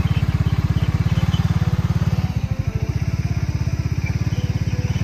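ATV engine running steadily close by, a fast, even low pulsing that eases slightly after about two seconds.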